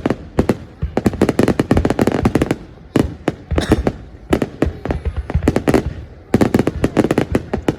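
Fireworks going off in dense volleys of sharp bangs and crackles, many bursts overlapping in quick succession, with short lulls between the volleys.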